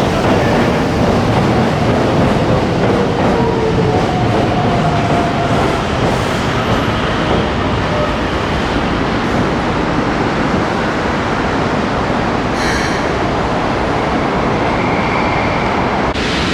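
Keikyu electric train moving alongside the platform: a steady rumble of wheels on rail, with faint thin squealing tones in the first half. The sound cuts off abruptly near the end.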